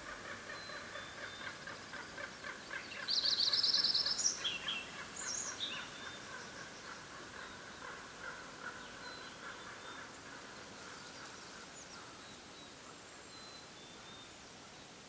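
Wild forest birds calling. About three seconds in, a loud, rapid high trill lasts about a second, followed by a few short chirps. Under it runs a steady string of lower repeated notes that fades away after about ten seconds.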